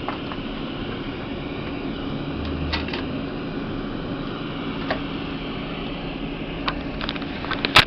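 Light clicks and knocks from a CD being handled and loaded into a Philips mini system, with a sharp click near the end, over a steady background hum.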